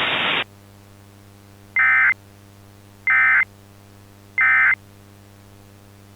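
Emergency Alert System end-of-message signal: three short, identical bursts of warbling digital data tones, about 1.3 s apart, marking the end of the alert. Just before them a static hiss cuts off suddenly, and a low steady hum runs underneath.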